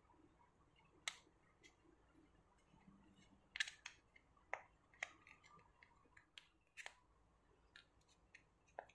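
Metal spoon clicking and scraping against a plastic rose-shaped putu ayu mould while grated coconut is spooned in and pressed down: a dozen or so scattered sharp clicks, the loudest about three and a half seconds in.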